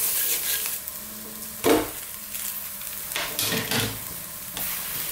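Egg omelette and pav bread sizzling in oil in a nonstick frying pan as a spatula scrapes under it and flips it over, with a louder knock about a second and a half in and a few lighter scrapes after.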